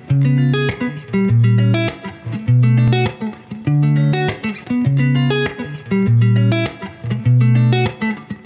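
Background music: a plucked guitar figure over a bass line, with a steady beat and the bass note changing about once a second.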